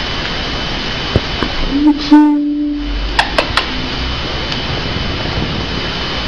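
A person's voice making one short held vocal sound about two seconds in, over a steady hiss, with a few sharp clicks around it.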